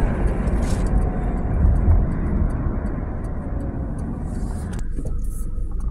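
Road and engine noise heard from inside a moving vehicle, a steady low rumble with tyre hiss that thins out about five seconds in as the vehicle slows for a traffic light.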